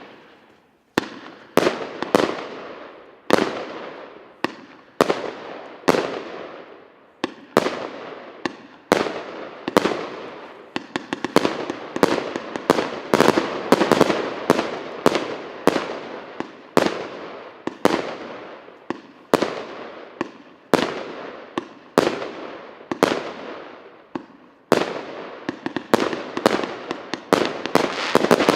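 A 100-shot firework cake firing shot after shot, each a sharp report followed by a fading crackling tail. The shots come about one to two a second, bunching faster in the middle and near the end.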